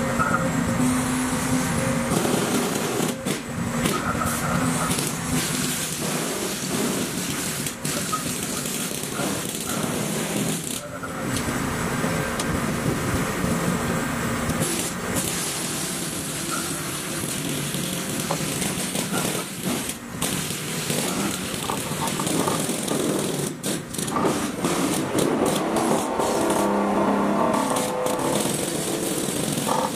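Excavator-mounted vibratory pile hammer and the excavator's engine running while driving sheet piles: a loud, steady mechanical din with a low hum and scattered clanks.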